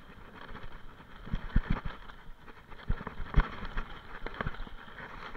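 Mountain bike riding down a dirt forest trail: tyres running over the dirt, with irregular knocks and rattles from the bike as it goes over bumps and roots.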